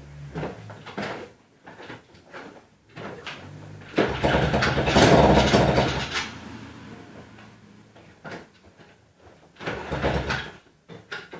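Dirt bike being kick-started without catching: a string of kicks, the loudest a spell of about two seconds around four seconds in, and another near ten seconds.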